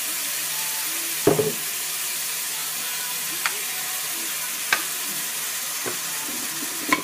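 Minced pork and shrimp paste sizzling steadily in a hot wok, with a few sharp knocks: a loud cluster about a second in, then single ones spread over the following seconds.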